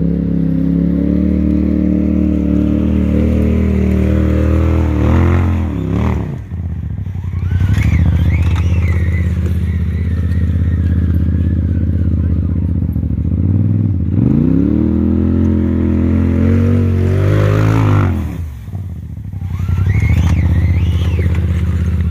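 Polaris RZR side-by-side's engine running hard on a loose rocky hill climb. It is revved up and then backed off twice, each time with the revs falling away sharply before it picks up again.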